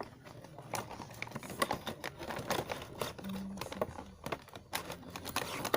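Irregular light clicks and taps of small plastic toy parts and packaging being handled.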